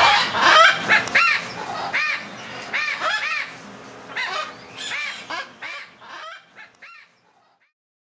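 Parrots squawking over and over: short calls that rise and fall in pitch, about one or two a second, fading away and stopping about seven seconds in.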